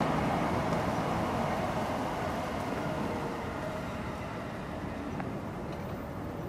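Steady low background rumble, like distant traffic, easing slightly over the seconds.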